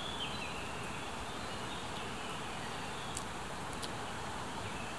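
Steady outdoor background noise, a faint even hiss, with a few short, faint bird chirps.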